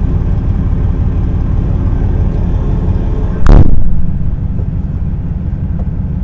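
Steady low rumble of an idling truck engine, with one loud thump about three and a half seconds in.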